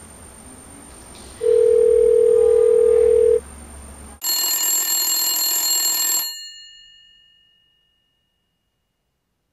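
A phone call being placed: a single steady ringback tone lasts about two seconds. Then a home telephone rings once, a bright bell-like ring that dies away into silence.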